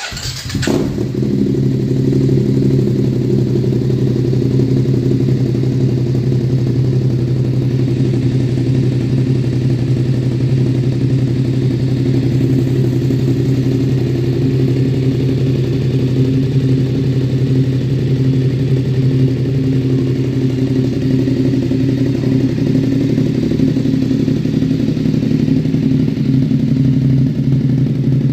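BMW F850 motorcycle's parallel-twin engine with an aftermarket sport exhaust, starting up suddenly and then idling steadily with a deep, even exhaust note.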